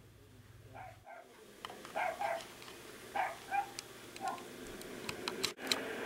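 A dog barking in several short barks, with a few sharp clicks near the end.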